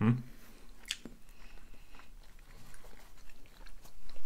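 Chewing and biting into homemade pizza close to the microphone: soft mouth sounds with scattered small clicks, and one sharper click about a second in.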